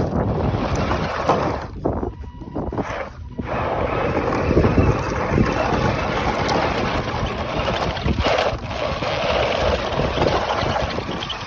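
RC pickup truck driving over gravel and dirt, its tyres crunching and its motor running, with wind buffeting the microphone. The noise drops away briefly two or three times about two to three seconds in.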